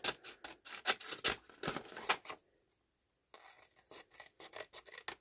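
Scissors snipping through paper around the edge of a card tag: a run of quick snips with paper rustling as it is handled, broken by about a second of silence near the middle.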